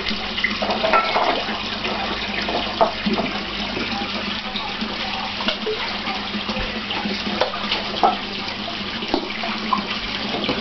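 Steady running water in a fish pond, with scattered short splashes and slaps as large catfish take food at the surface.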